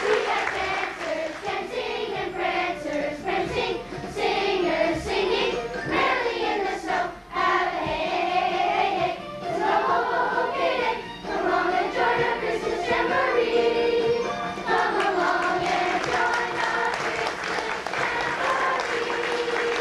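A large group of children singing together as a choir.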